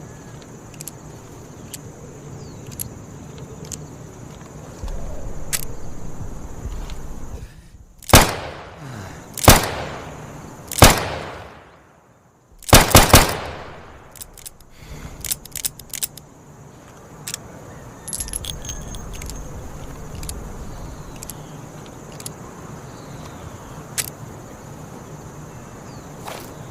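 Smith & Wesson Model 10 .38 Special revolver fired six times: three single shots about a second and a half apart, then three in quick succession, each with a ringing, echoing tail. Light metallic clicks of the gun being handled come before and after the shots.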